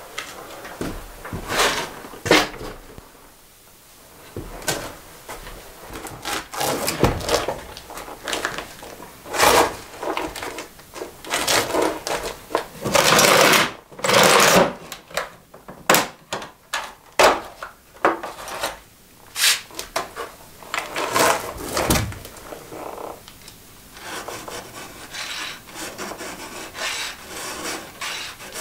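Tools and materials being handled by hand: an irregular run of short rubbing, scraping and clattering noises, with a longer rasping scrape near the middle.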